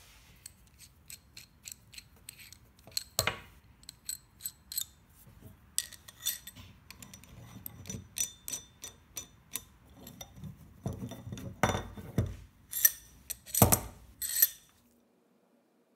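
Steel sliding handle of a vise screw being shifted through the screw's end, clinking and clacking against its end stops with a metallic ring. A string of light clicks builds to several louder clanks near the end, then stops.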